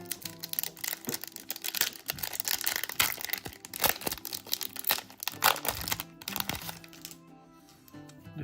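Trading-card booster pack's foil wrapper being torn open and crinkled, a dense run of crinkling that dies away about seven seconds in, over steady background music.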